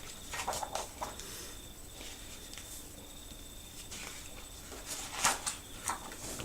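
Paper rustling as the pages of a picture book are handled and turned. There are two bursts of crisp rustling, one just after the start and one around five seconds in, over a faint steady high whine.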